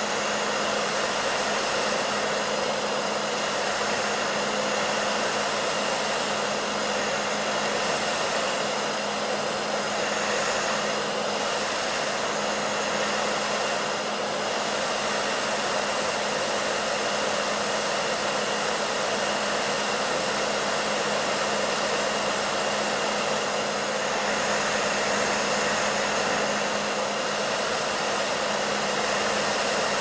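Hair dryer running steadily: an even rushing blow of air with a steady low hum under it.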